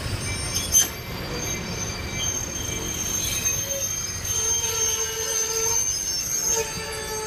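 Railway car wheels squealing against the rails over the low rumble of a slowly moving train: a steady high squeal, with lower squealing tones joining in the second half, and a sharp clank about a second in.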